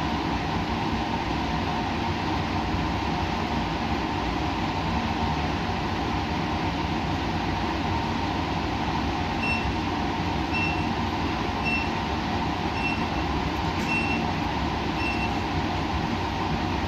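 Steady rumbling noise of laboratory equipment running. From about the middle, six short high beeps sound about once a second.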